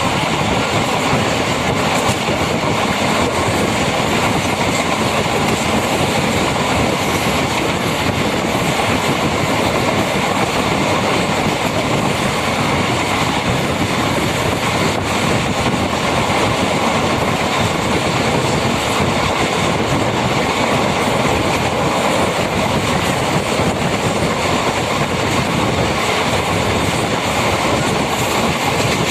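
MEMU electric train running along the track: a steady rumble of wheels on rail with clickety-clack.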